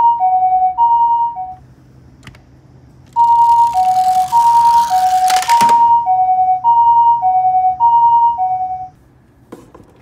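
Japanese-style two-tone ambulance siren, a high and a low note alternating about once a second. It stops about a second and a half in, starts again about three seconds in and runs until near the end. Under the second stretch a rushing whoosh swells and ends in a sharp crack about five and a half seconds in.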